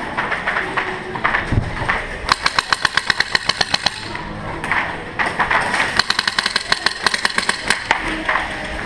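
Airsoft gun firing on full auto: two long bursts of rapid shots, about ten a second, each lasting well over a second.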